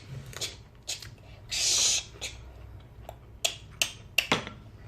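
Eating and mouth noises at a meal table: scattered sharp clicks and smacks, a short hissing burst about one and a half seconds in, and a quick run of clicks near the end.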